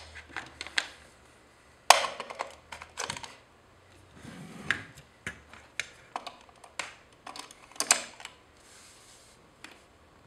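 Sharp plastic clicks and knocks as an Elgato Eve Energy smart plug is pushed into a wall socket and a lamp's mains plug is then pushed into the smart plug. The loudest click comes about two seconds in, with lighter handling rustle between the clicks.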